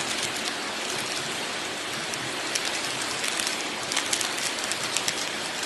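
Steady rain falling, with scattered sharper ticks of drops.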